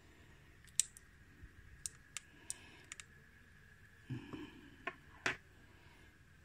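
Scattered sharp plastic clicks and taps as hands handle a DJI Osmo Action 3 action camera and its accessory, about eight in all, with a brief duller knock about four seconds in.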